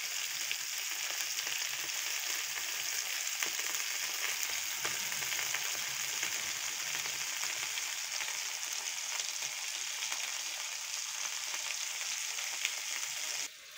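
Pollock pieces frying in a grill pan: a steady sizzle with fine crackles, the fish browning to a golden crust. The sound cuts off abruptly near the end.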